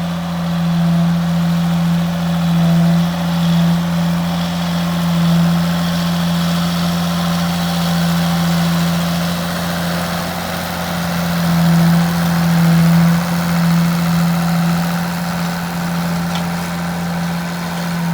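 Ford TW-15 tractor's six-cylinder turbo diesel engine running steadily under load, pulling a four-furrow plough: a loud, even engine drone that swells slightly now and then.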